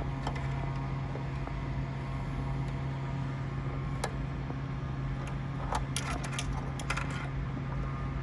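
A presser foot being fitted back onto a White Superlock 2000 ATS serger: a single sharp click about halfway through, then a quick cluster of small clicks and knocks near the end, over a steady low hum.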